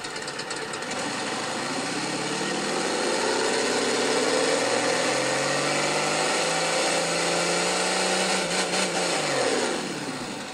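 Recorded 'Crawler D' engine sound sample from the Sense Innovations sound library, playing through a Microsoft Surface's speakers. The engine idles, then revs up slowly over several seconds with its pitch rising, and drops back near the end. It sounds like a smaller truck.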